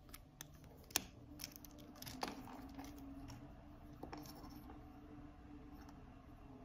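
Faint, scattered clicks and taps of a D1 Milano polycarbonate watch's link bracelet and folding clasp being flexed and turned in the hands. The sharpest clicks come about a second and two and a quarter seconds in.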